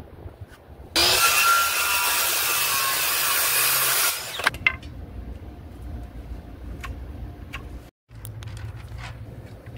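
Handheld circular saw cutting across a wooden plank, running for about three seconds from about a second in, then stopping. Quieter clicks and knocks of handling follow.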